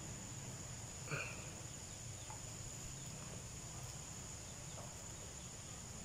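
Steady high-pitched drone of insects, with one short bird call about a second in.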